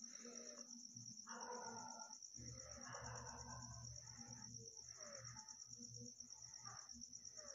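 Near silence: faint background with a steady, rapidly pulsing high-pitched trill and faint scattered sounds.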